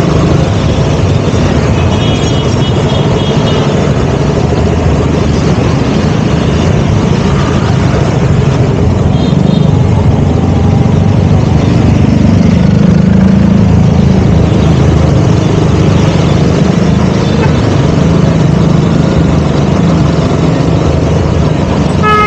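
KTM Duke 200's single-cylinder engine running while riding through traffic, its pitch rising as it speeds up about halfway through and then settling. A short high-pitched beeping sounds about two seconds in.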